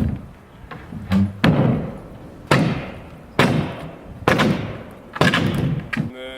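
Heavy hammer blows on wood, about one a second, each knock sharp with a short ringing tail, typical of the work of taking a house apart. A brief squeal comes near the end.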